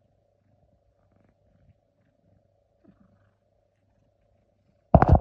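Near silence with a faint steady hum, broken about five seconds in by a sudden loud burst of sound.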